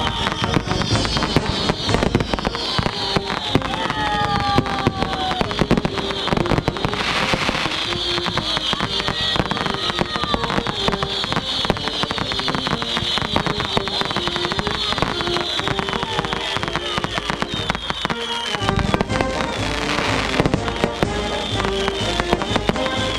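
Consumer fireworks crackling densely, with many rapid pops and a run of short falling whistles, while music plays alongside.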